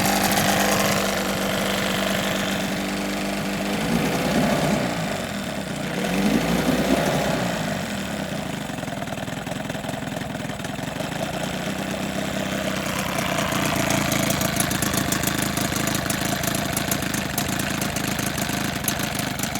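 1980 Evinrude 15 hp two-cylinder two-stroke outboard running in a test barrel. The revs rise and fall about four and six to seven seconds in, then it settles into a steady run.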